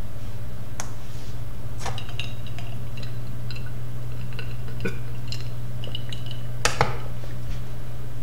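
A bare 7200 RPM Seagate SATA hard drive and the desktop PC running through a read benchmark: a steady low hum, with scattered light clicks and small ticks and one sharper click near the end.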